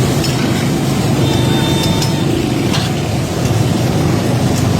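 A metal ladle clinking and scraping a few times against a karahi of chicken cooking, over a loud, steady low rumble.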